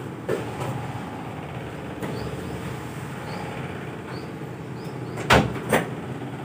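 Steady background hum and hiss, with two sharp knocks about five seconds in, half a second apart.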